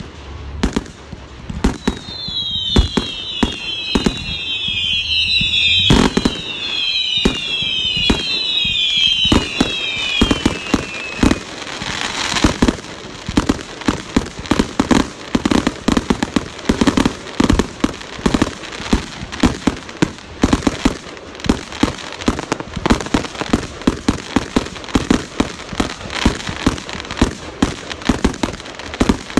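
Fireworks going off: a quick series of falling whistles over scattered bangs, then from about twelve seconds in a dense, rapid crackle of pops and bangs.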